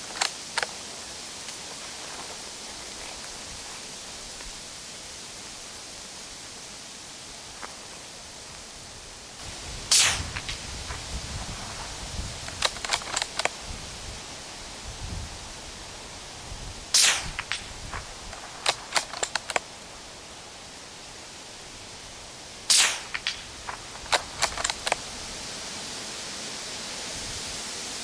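Three shots from a suppressed .22 LR hunting carbine, about seven and six seconds apart, each followed by a few lighter clicks. A steady hiss of strong wind runs underneath, with low rumbling gusts on the microphone.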